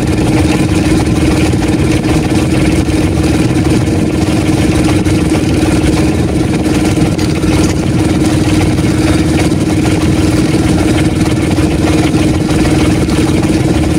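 Outrigger fishing boat's engine running steadily, a constant drone that does not change.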